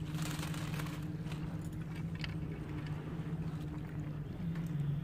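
A steady low engine hum that drops slightly in pitch about four and a half seconds in.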